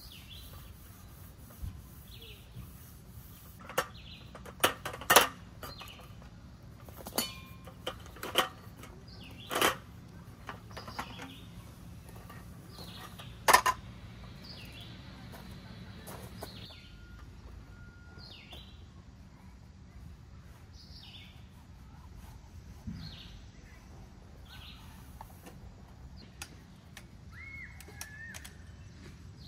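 A folding roll-up camp table being taken down and packed: a string of sharp clacks and rattles over the first half, two of them much louder than the rest. A bird chirps again and again, with a short trill near the end.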